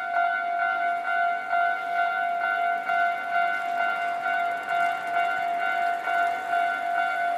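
Electronic warning bell of a Japanese railway level crossing ringing, a steady repeated ding about twice a second: the signal that a train is approaching and the barriers are down.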